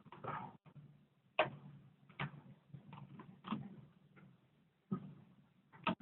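Rubber bands snapping onto a watermelon's rind as they are stretched around it: about five short, sharp snaps at irregular gaps.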